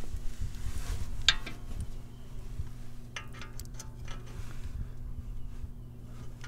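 Steel spindle spreader tool being fitted into the front suspension knuckle. There is one sharp metallic clink with a short ring about a second in, then a few light taps and clicks, over a faint steady hum.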